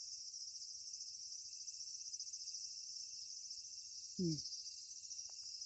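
Summer cicadas calling in a steady, high, fast-pulsing chorus, with a short low falling vocal sound about four seconds in.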